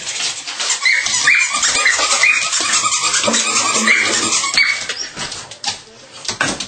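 Belgian Malinois puppy giving short, high-pitched yelps while playing, over a rapid patter of clicks and scuffles; the sound dies down about five seconds in.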